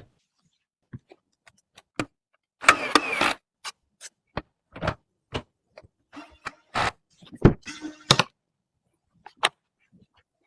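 A series of separate short clicks, taps and knocks with brief rustles between them, from computer parts being handled and fitted together during PC assembly.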